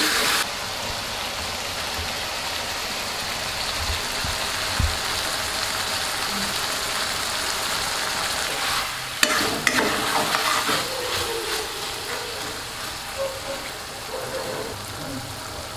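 Buffalo-meat curry sizzling with a steady hiss as it is stir-fried in a metal wok. About nine seconds in, the metal spatula scrapes and knocks against the pan several times.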